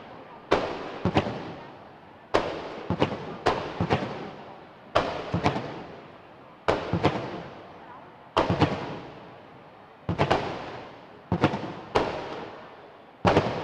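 Aerial firework shells bursting, sharp bangs coming singly or in quick groups of two or three every second or two, each trailing off in a long fading echo.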